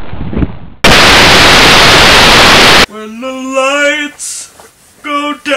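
About a second in, a sudden burst of loud, even static hiss lasts about two seconds and cuts off abruptly. A singing voice then starts, holding long, steady notes.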